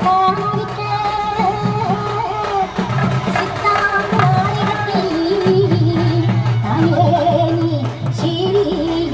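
Music with a singing voice carrying a wavering melody over a steady low accompaniment.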